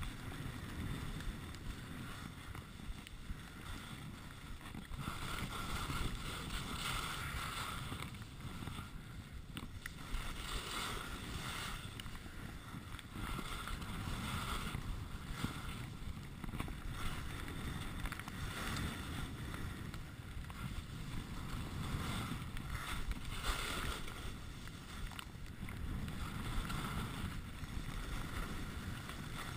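Skis carving linked turns on packed snow, the edges' scraping hiss swelling with each turn every two to three seconds, over a steady low rumble of wind on the GoPro's microphone.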